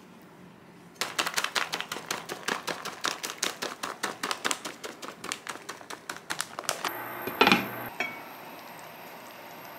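Shredded mozzarella shaken from a plastic bag onto a tortilla in a frying pan: a rapid, irregular run of bag crinkles and small patters for about six seconds, then one brief, louder clatter.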